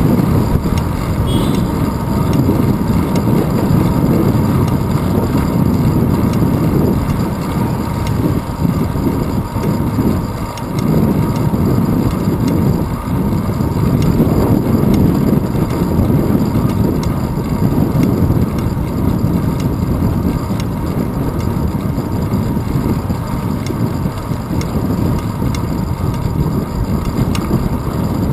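Steady rumble of wind buffeting and road vibration picked up by a handlebar-mounted GoPro Hero 2 on a road bike rolling over asphalt. It eases briefly twice midway.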